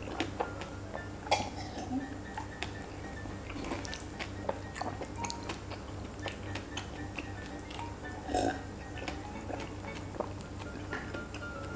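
Close-miked wet chewing and mouth clicks of a person eating a saucy kebab, with one louder short throaty sound, like a burp, about eight seconds in, over steady background music.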